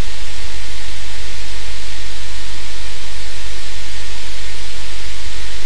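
Loud, steady hiss with a low hum beneath it, electrical noise from the sound system or recording feed, with no other event standing out.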